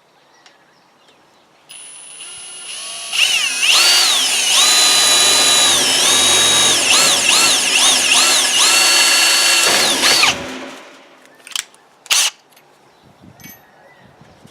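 Electric drill boring a small starter hole through the face of a gate lock latch. The motor whine starts about two seconds in and speeds up, its pitch dips and recovers several times as it bites and the trigger is eased, and it stops about ten seconds in. A few sharp clicks follow.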